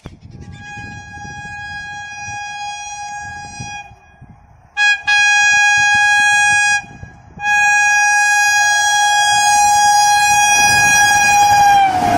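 WAP7 electric locomotive's horn, one steady tone sounded in three blasts as the train approaches at speed: a fainter first blast, then two loud ones, the last long, its pitch dropping near the end as the locomotive passes.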